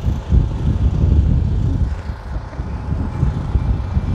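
Wind buffeting the phone's microphone outdoors: a loud, irregular low rumble that rises and falls in gusts.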